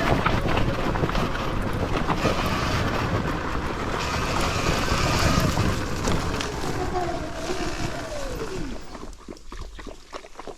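Wind buffeting the microphone and tyre noise as a Sur-Ron Ultra Bee electric dirt bike rides. The motor's whine falls in pitch as the bike slows to a stop about nine seconds in.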